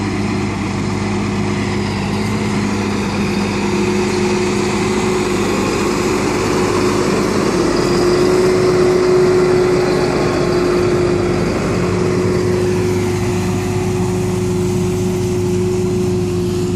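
Tractor engine running steadily under working load, a constant hum with a few held tones, while it pulls a trailing-shoe slurry applicator fed by an umbilical hose.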